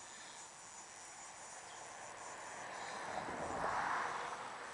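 Zebco spincast reel's drag slipping as line is pulled out, a buzz that swells to a peak about three and a half seconds in and then eases: the drag is set too loose. Insects chirp faintly throughout.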